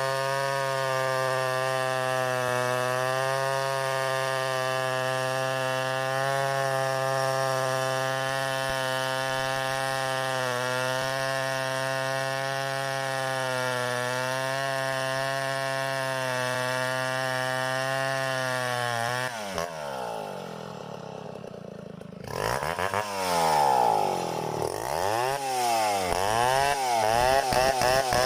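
Two-stroke chainsaw engine running at a steady high speed, then dropping off sharply about 19 seconds in. It is revved up and down several times near the end.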